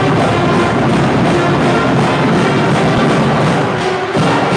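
High school marching band playing a tune in the gym, brass over drums with a steady beat, the sound dipping briefly just before the end.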